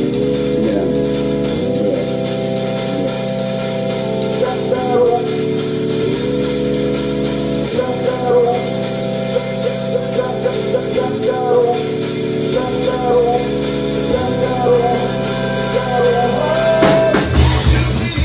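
Live rock band playing: held chords that change every second or two, with a melody line on top. The bass and drums come in loudly near the end.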